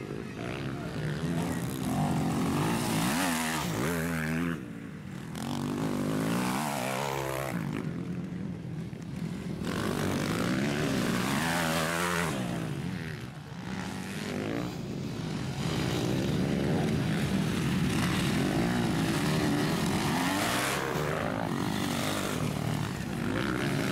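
MX2-class motocross bikes racing past one after another, their engines revving, with the pitch repeatedly rising and falling as riders accelerate and back off.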